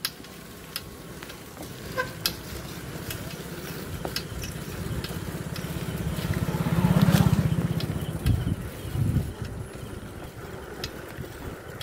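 A motorcycle engine growing louder to a peak about seven seconds in, then fading as it passes, with a few scattered light clicks.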